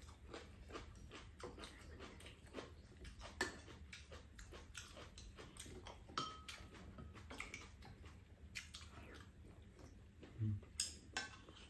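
Quiet eating sounds: chewing of stewed konjac and quail eggs, with many small clicks of chopsticks and spoons against bowls and a pan.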